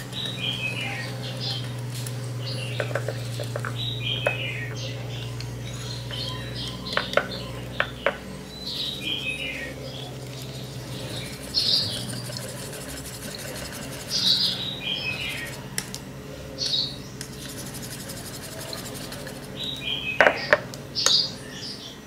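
Wire whisk beating eggs and flour into batter in a ceramic bowl: scraping and stirring, with sharp clinks of the wires against the bowl, a cluster of the loudest near the end. Birds chirp now and then in the background.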